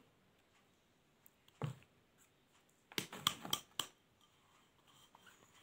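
Powdered sugar being poured from a small bowl into a plastic mixing basin: one soft knock, then a quick run of four or five light taps as the bowl is knocked against the basin to empty it.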